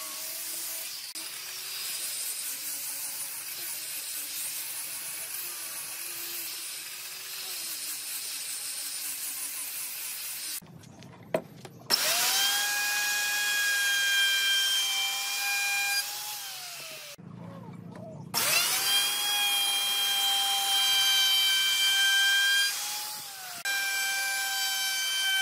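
A hand-held electric disc sander sanding a wooden panel frame, its motor hum wavering in pitch under hand pressure. About ten seconds in it gives way to a Dongcheng DMR02-12 router, which runs with a loud, high steady whine while routing along the edge of a wooden frame. The router winds down about four seconds later, then starts again and cuts for several seconds more.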